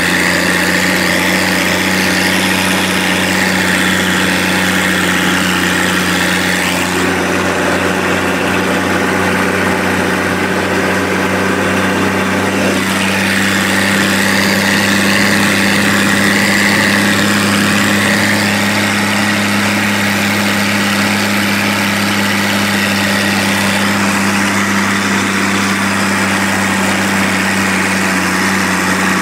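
Allis-Chalmers 185 farm tractor's engine running steadily under heavy load while pulling a disk harrow, being broken in after a major overhaul.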